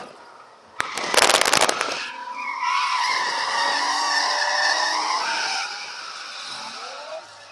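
Tyres squealing on a Ford AU Falcon ute as it slides sideways in a drift, heard from inside the cabin; the squeal is loudest in the middle and fades near the end. About a second in comes a brief burst of loud rapid crackling knocks.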